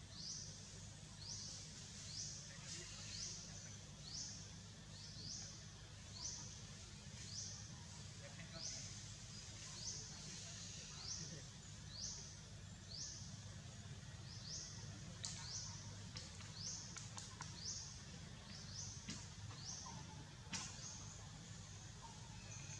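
Faint forest ambience: a high, rising chirp repeated about once a second over a low steady rumble, with a couple of sharp clicks about two-thirds of the way through.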